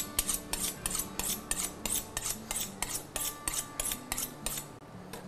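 Kitchen knife being sharpened: the blade is drawn against a sharpener in quick, even strokes, about four a second, which stop near the end.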